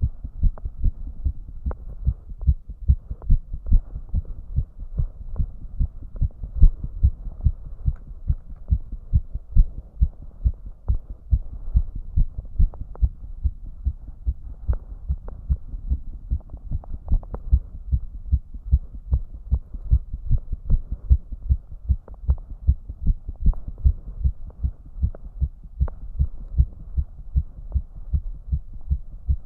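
A man's heartbeat, raised to about 150 beats a minute: a steady, fast run of low thuds, about two and a half a second.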